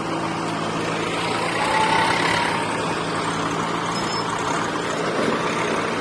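A JCB 3DX backhoe loader's diesel engine runs under load as it digs and loads soil, with a tractor's diesel engine idling alongside. A short, faint rising whine comes about two seconds in.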